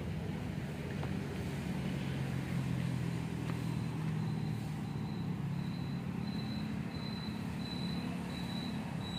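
Maruti Suzuki Baleno hatchback reversing slowly at low revs with a steady low engine hum. From about three and a half seconds in, a short high beep repeats about twice a second.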